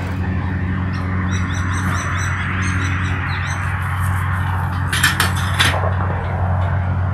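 Birds chirping in quick repeated calls during the first half, over a steady low hum. A short crackling burst comes about five seconds in.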